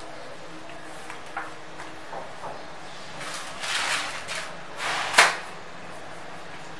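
Thin clear plastic sheet crinkling as it is lifted and folded over a paratha, in two short rustles, with one sharp slap or tap about five seconds in, the loudest sound.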